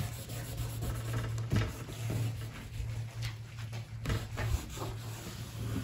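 A cloth rubbing thick wax into the dry wood of an antique bed crown frame, with a few light knocks against the frame and a steady low hum beneath.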